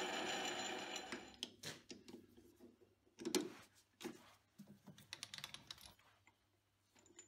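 A metal lathe running, then winding down about a second in. It is followed by scattered sharp clicks and knocks as a chuck key loosens the chuck jaws and the aluminium part is handled out of the chuck.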